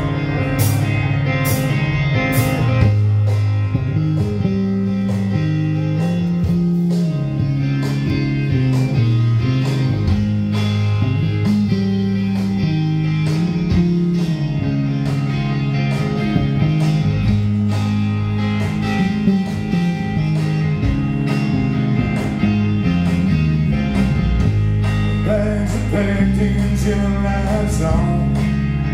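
A rock band playing live: electric guitars over drums, with regular cymbal hits and a moving low bass line.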